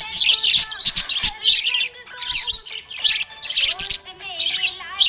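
Budgies chirping and warbling in a rapid, continuous chatter of short high chirps.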